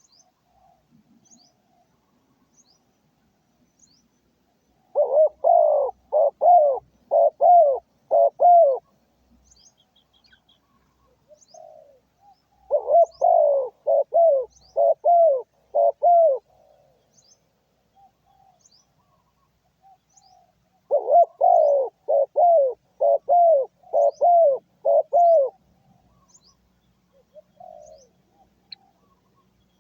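A trained decoy dove calling: three bursts of quick, repeated coos, each burst of seven or eight notes lasting about four seconds, with several seconds' pause between them. Small birds chirp faintly in the background.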